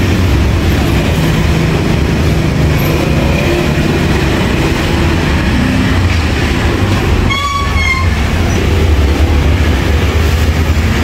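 Steady low rumble of passing vehicle traffic, with a brief high-pitched tone about seven seconds in.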